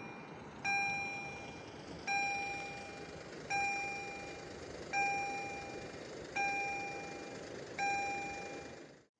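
Level crossing warning signal ringing, one ding about every one and a half seconds over a steady hiss, warning that a train is approaching; it cuts off suddenly near the end.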